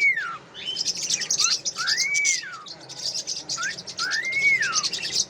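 Cockatiel chattering with fast high chirps, giving three whistle notes about two seconds apart, each rising and then falling in pitch.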